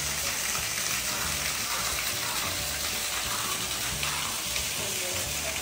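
Small waterfall, a thin stream of water pouring off a rock ledge and splashing into a stone pool, making a steady hiss. Background music with a low bass line plays over it.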